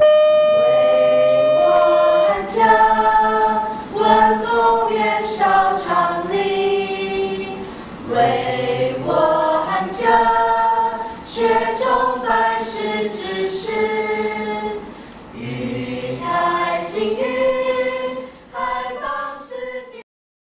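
A choir singing a slow melody in held notes that move step by step, opening on one long note. The singing cuts off suddenly near the end.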